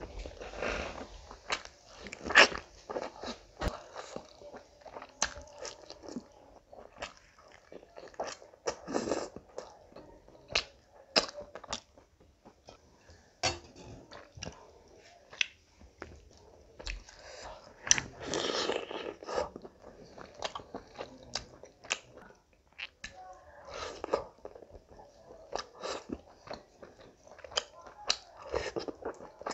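Close-miked eating sounds of a person chewing rice and curry: irregular wet mouth clicks and smacks, with a few longer noisy stretches.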